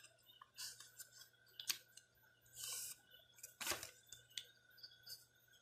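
A sheet of white paper being folded and creased by hand: faint crinkles and taps, with a short rustle of paper sliding about halfway through.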